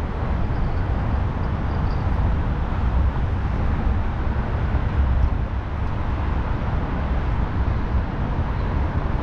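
Steady rumble of road traffic from nearby highway bridges, an even wash of outdoor noise with a heavy low rumble and no distinct events.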